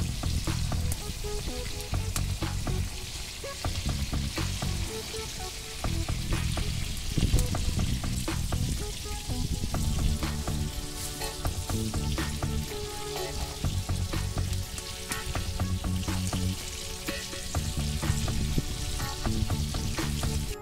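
Fish frying in hot oil: a steady sizzle with frequent pops and crackles, over background music with a bass line.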